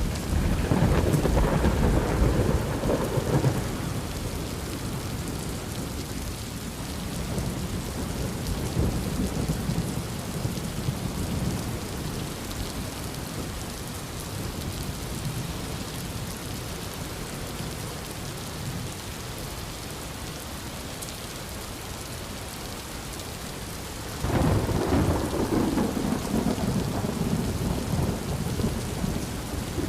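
Thunderstorm: steady heavy rain with two rolls of thunder, one in the first few seconds and one breaking in suddenly near the end and rumbling on.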